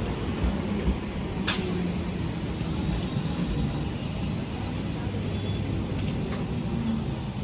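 Train running along the track: a steady low rumble, with one sharp click about a second and a half in.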